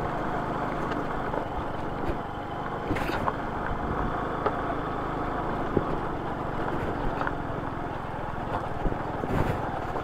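Small motorcycle engine running steadily at low speed over a rough gravel road, tyres rolling on loose stones, with a few short sharp clicks scattered through.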